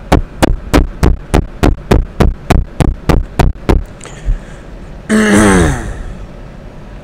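About a dozen quick, evenly spaced finger taps right against a microphone, about three a second for nearly four seconds. About a second after they stop, a person gives a short voiced hum that slides down in pitch.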